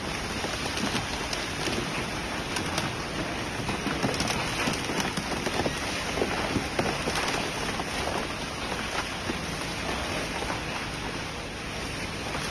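Industrial shredder tearing apart a scrapped refrigerator: a steady, dense crackle of many small cracks and knocks as the metal and plastic are ripped up.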